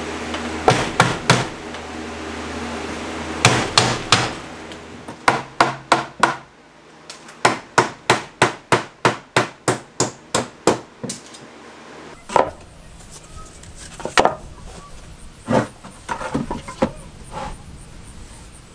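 Hammer striking wood in bursts of blows, with a steady run of about a dozen strikes at roughly three a second in the middle, knocking loose a plywood strip along the bottom of a wall.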